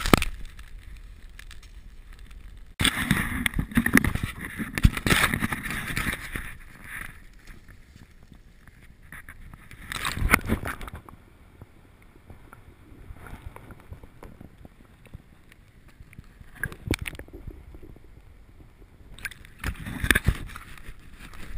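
Rustling and handling noise close to the microphone, loud for several seconds starting about three seconds in, then a short burst of water sloshing in a minnow bucket about ten seconds in, with a few brief knocks near the end.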